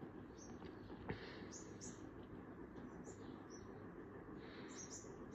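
Faint steady whoosh of a vintage Weatherite ceiling fan running, with about eight short, high-pitched chirps scattered irregularly over it.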